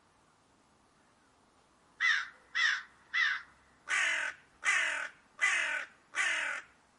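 Crow cawing: seven harsh caws in a row beginning about two seconds in, three short ones followed by four longer ones, each dropping slightly in pitch.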